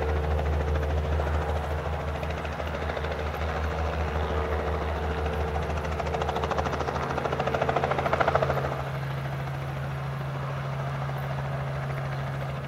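Small two-blade helicopter hovering low to land, a steady beating rotor drone with engine hum. It swells to its loudest about eight seconds in, then the note drops a little and settles.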